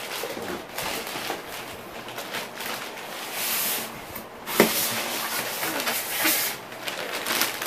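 Printer packaging being handled during unboxing: irregular rustling and crinkling with scattered clicks, and a sharp knock about four and a half seconds in.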